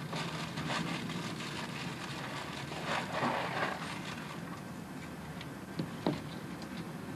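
Crinkling and rustling of a cardboard cereal box and its contents as it is handled and rummaged in. There are scattered short crackles and a denser burst of rustling about three seconds in, over a steady low hum.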